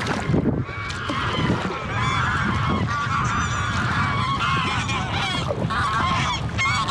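A flock of geese honking, many calls overlapping, growing louder about two seconds in.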